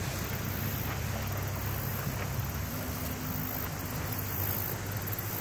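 Steady outdoor background noise, an even rushing hiss with a low hum underneath and no distinct events.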